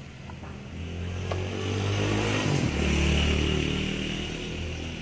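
A motorcycle passing by. Its engine grows louder, drops in pitch as it goes past, and fades away.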